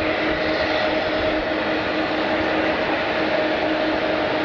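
Jet airliner engines running steadily: a constant rushing noise under a level whine that neither rises nor falls.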